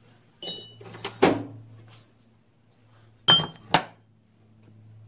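Steel hand tools clinking on a cluttered steel-topped workbench: three knocks about half a second in, the last the loudest, then two sharp metallic clinks with a brief ringing about three seconds in. A low steady hum runs underneath.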